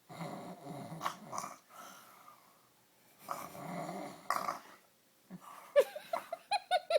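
Dog snoring: two long rasping snores about three seconds apart.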